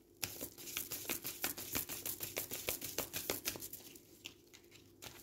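A deck of tarot cards being riffled through by hand: a fast run of crisp card snaps for about four seconds, thinning out near the end.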